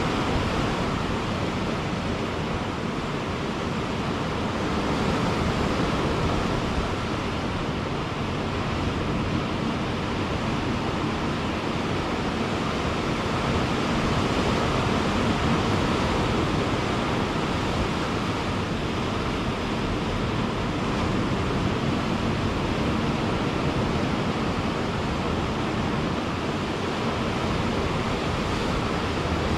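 Ocean waves breaking on a beach in a steady, continuous wash of surf, swelling and easing slightly every few seconds.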